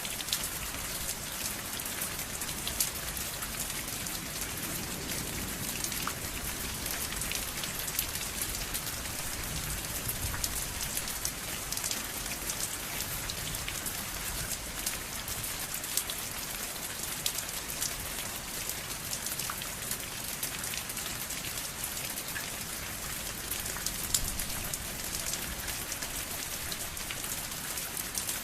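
Steady rain falling, a constant hiss with many individual drops ticking on a surface.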